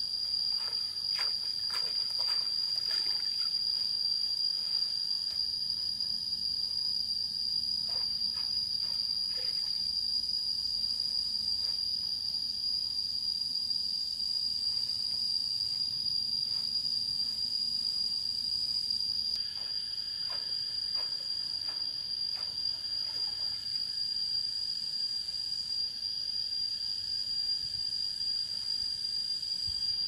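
Insects trilling in one steady, unbroken high tone, with scattered light clicks and knocks now and then.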